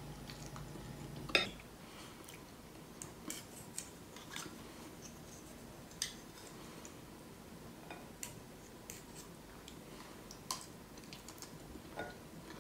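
Metal fork and spoon clinking and scraping on a ceramic plate while twirling spaghetti: scattered light clinks, the loudest about a second and a half in.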